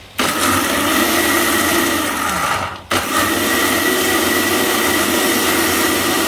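Countertop blender grinding roasted peanuts, palm sugar, dried chillies and garlic with water into a peanut sauce paste. The motor runs steadily, cuts out briefly a little under three seconds in, then starts again.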